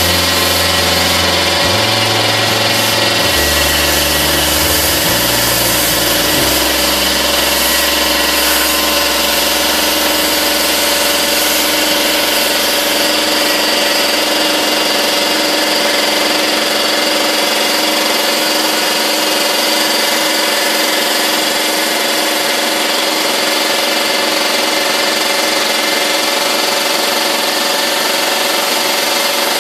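Dryer vent cleaning equipment's motor running steadily and loudly with a high hiss of air, while lint is driven out of a dryer duct. Low background music notes play under it for the first part and fade out.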